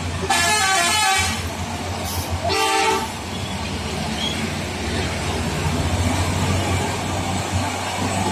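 Two vehicle horn blasts, one about a second long and a shorter one a second and a half later, over the steady low drone of a heavy truck's diesel engine running as it passes.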